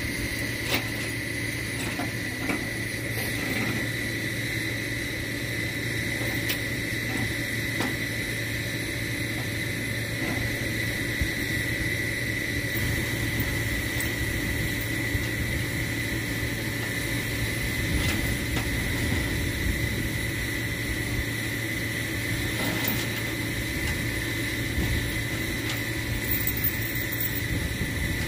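Flatbed tow truck's engine idling steadily, with a steady high tone over it and a few faint clinks as the tow chains are hooked to the car.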